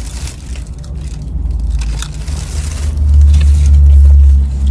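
Paper food wrapper crinkling and crunching close to the microphone, over a heavy low rumble that swells about three seconds in.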